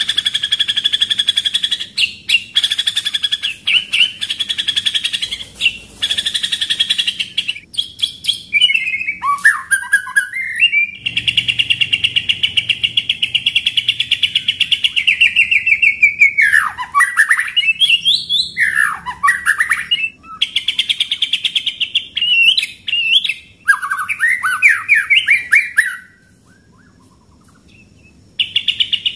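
White-rumped shama singing a loud, fast song of rapid rolling trills, with one long unbroken roll a little before the middle and a few swooping notes after it. The song stops for about two seconds near the end, then starts again.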